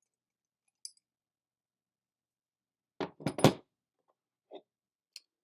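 Metal parts of an air pistol's CO2 magazine being handled while the piercing screw is taken out with a hex key: one light click, then about three seconds in a brief clatter of metal knocks with a faint ring, and two faint taps near the end.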